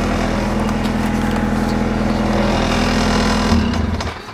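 1991 Volkswagen Jetta's 1.6-litre turbodiesel engine idling steadily, then switched off: it shudders about three and a half seconds in and dies just before the end.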